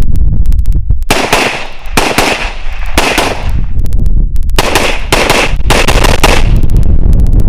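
Semi-automatic gunfire: loud shots in quick strings of two to five, with short pauses between the strings.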